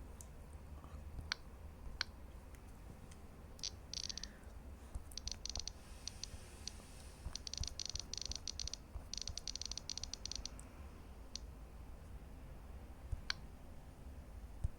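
Samsung Galaxy Tab A9+ tablet clicking as it is operated: scattered single taps and four quick runs of rapid ticks.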